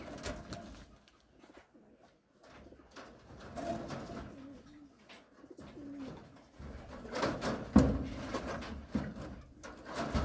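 A dove cooing a few low notes, with knocks and rustling from hands working inside a wooden rabbit hutch. The loudest sound is a sharp knock about eight seconds in.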